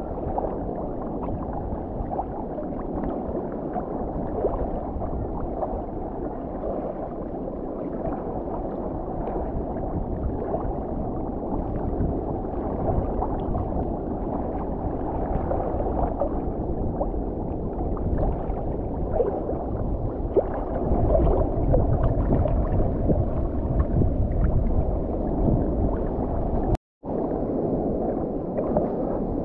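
Lagoon water in a strong current sloshing and gurgling around a camera held at the water's surface, heard muffled and dull, heavier for a few seconds in the second half, with a brief gap near the end.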